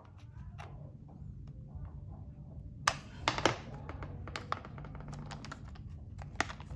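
Small irregular clicks and taps of a screwdriver working the screw of a plastic toy train's battery cover, with a few sharper clicks about three seconds in and near the end, over a low steady hum.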